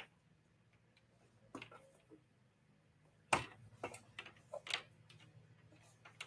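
Irregular clicks and knocks from objects being handled near the microphone, the loudest a sharp knock a little over three seconds in, over a low steady hum.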